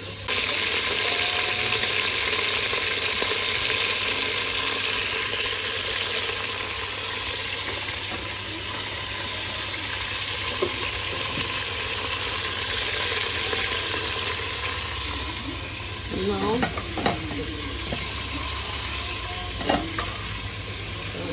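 Food frying in hot oil in a pan. The sizzle starts suddenly just after the start, as the food goes in, then runs on steadily and gets a little quieter. A few short, higher-pitched sounds come near the end.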